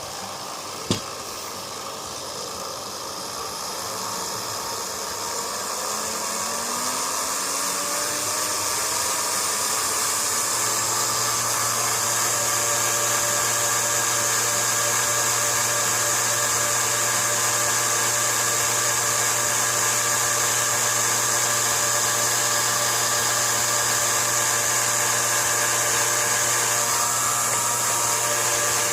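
Cordless drill motor and gearbox driving a homemade mini lathe, running with a steady whine. After a click about a second in, the whine climbs in pitch and loudness over several seconds as the motor speeds up, then runs steady.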